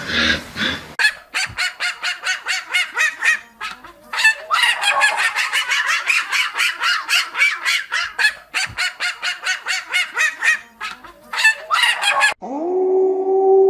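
A run of short, rapid honking calls from waterfowl, about four a second, with a few brief pauses. Near the end the calls stop and a steady ringing tone begins.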